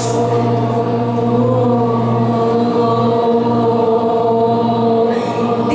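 Voices holding one long, steady chanted tone on a single low pitch, the sustained 'homo smile' sound of smile meditation.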